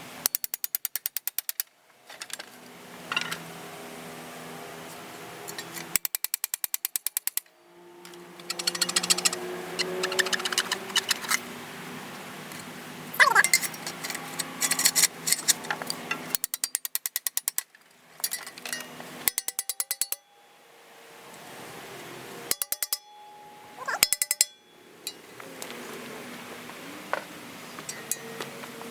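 Metal striking metal in rapid runs of sharp, evenly spaced blows, as old handle wood is driven out of a shovel's socket with a length of rebar; several runs of a second or so, with a steady hum between them.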